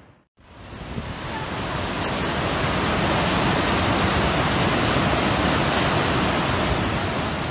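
Fast, silty glacial meltwater stream rushing loud and steady under a ladder footbridge. The sound builds over the first two seconds after a brief gap near the start.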